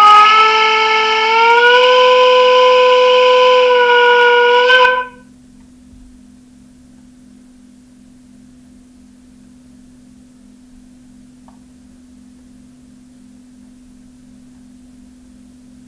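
Sound decoder of a Trix H0 DB class 44 steam locomotive model playing its long steam whistle through the model's small loudspeaker: a chord of several tones that rises slightly in pitch about a second and a half in, then holds for about five seconds in all and cuts off. Afterwards only a faint steady hum remains.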